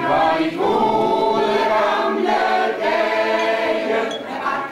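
Women's choir singing, starting right at the beginning, in sustained phrases with short breaths between them.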